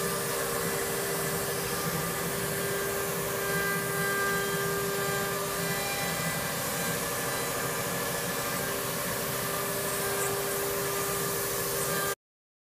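Wood CNC router's spindle running while it cuts into a wooden board: a steady whine over an even cutting noise. The sound cuts off suddenly near the end.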